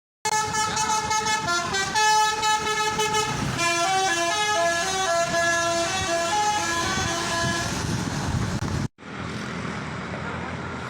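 Transjakarta bus's 'telolet' musical horn playing a tune of stepped notes, several tones sounding together, for about eight and a half seconds. It cuts off abruptly near the end, and steady bus engine noise follows.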